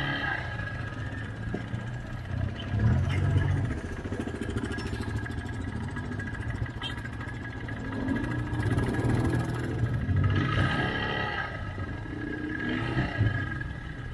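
ATV (quad bike) engine running while riding, its note rising and falling a few times as the throttle is worked.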